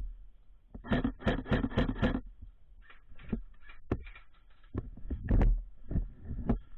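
A quick run of about six thumps, three to four a second, lasting about a second and a half, followed by scattered single thumps and faint rustling, with the loudest thump about five and a half seconds in.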